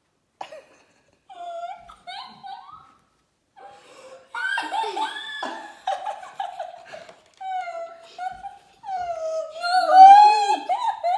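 A girl's high-pitched, emotional squeals and sobbing cries of joy mixed with laughter, sparse at first and then near-continuous, loudest near the end.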